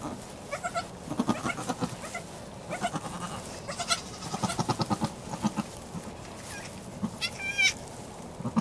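Nigerian Dwarf goat making soft, short, low calls in several quick series, typical of a doe talking to her newborn kid. About seven seconds in comes a single higher-pitched cry.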